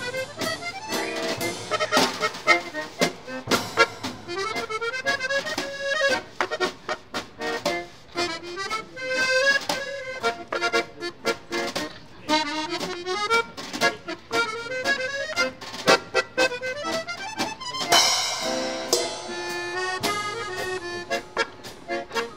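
Instrumental background music: a melody of quick running notes rising and falling over a regular beat.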